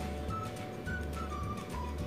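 Background music: a simple melody of short high notes over a deep bass that pulses on and off.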